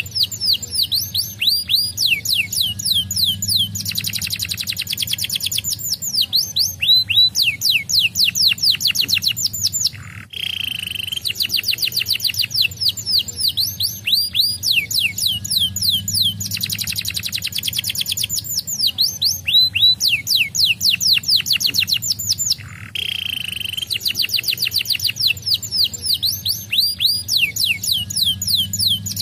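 Domestic canary singing a long, fast song: high rapid trills, each phrase a quick run of falling notes, with brief pauses between phrases.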